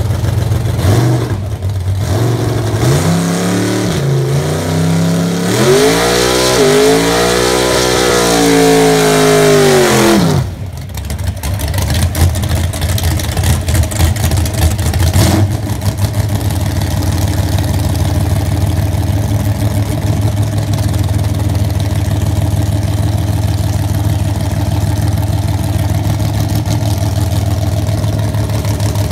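Drag-racing Chevrolet S-10 pickup's engine revving up and held high for several seconds with a hiss of spinning tyres, as in a burnout, then dropping off sharply about ten seconds in. It then idles with a choppy, uneven beat while the truck is staged.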